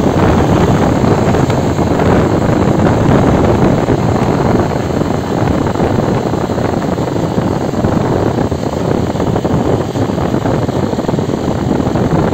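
Honda CG Titan 125 KSE motorcycle on the move: wind rushing over a handlebar-mounted phone's microphone, with the bike's single-cylinder four-stroke engine and tyre noise running steadily underneath.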